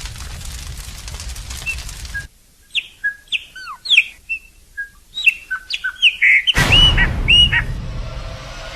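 A bird calling in a quick series of short whistled chirps, many sliding down or up in pitch. The calls begin about two and a half seconds in, after a steady rushing noise cuts off abruptly.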